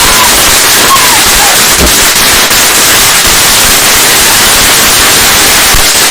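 Lit firework spraying with a very loud, steady hiss that overloads the microphone, cutting off suddenly at the end.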